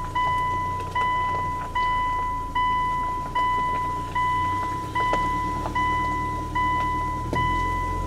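Japanese railroad level-crossing warning bell ringing, a clanging tone repeated about five times every four seconds, over a low steady rumble.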